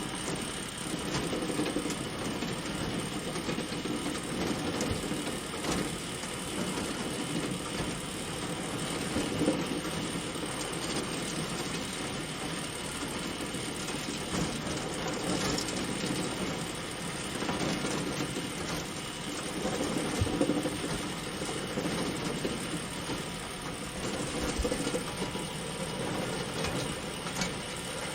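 Bale elevator running: the chain conveyor gives a steady mechanical clatter, with small knocks and clicks all through it.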